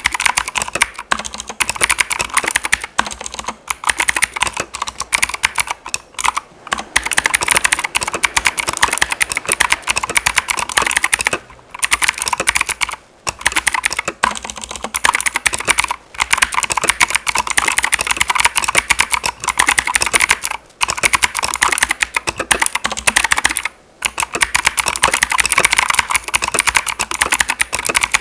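Fast continuous typing on a Keychron K2 V2 mechanical keyboard with clicky blue switches: a dense run of sharp key clicks, broken by a few short pauses.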